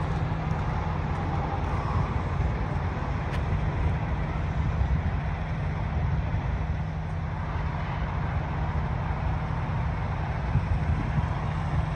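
Tanker semi-truck driving on the road: a steady low engine drone with even road and tyre noise.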